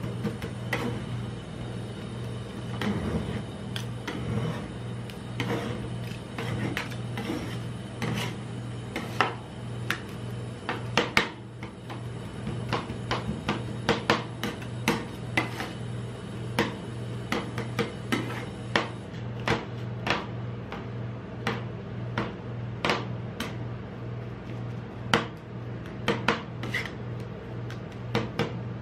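Two metal spatulas chopping and scraping frozen ice cream on a steel ice-roll cold plate: a steady run of irregular sharp metal clicks and taps, several a second, over a constant low hum.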